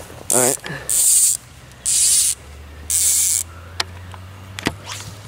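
Fly reel's click-and-pawl ratchet buzzing as fly line is stripped off it in four quick pulls, about once a second, to get enough line out for the cast.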